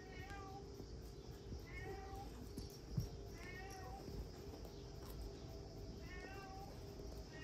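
Kitten mewing: four short, high-pitched cries about two seconds apart, with a thump about three seconds in.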